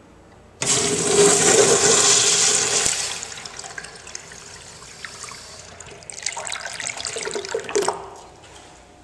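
Crane urinal flushing through its chrome flush valve: a sudden rush of water starts about half a second in, loudest for the first couple of seconds, then eases off. A second surge of rushing water comes around six seconds in and stops near eight seconds.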